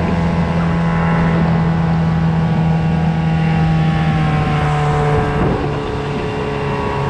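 Small boat's motor running steadily under way, a constant droning hum that eases off slightly about five seconds in, with wind rumbling on the microphone.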